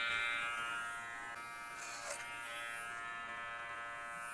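Cordless electric hair clipper running with a steady buzz as it cuts hair over a comb, with a short rasp about two seconds in.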